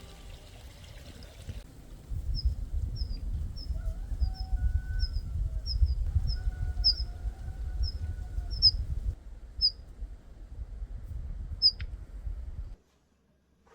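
A small bird giving a series of short, high chirps, about two a second, over a low steady outdoor noise that cuts off suddenly near the end.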